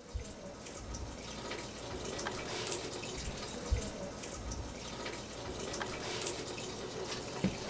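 Water running from a faucet into a sink, a steady rush with a few light clicks and knocks.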